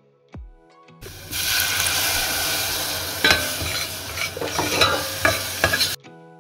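Tomato puree and spices frying in hot oil in a stainless steel pot, sizzling loudly as a few drops of water hit the pan, with a metal spoon stirring and clicking against the pot several times in the second half. The sizzle starts about a second in and cuts off suddenly near the end.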